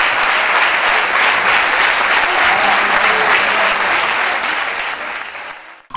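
Crowd applauding, with some voices mixed in, fading out near the end.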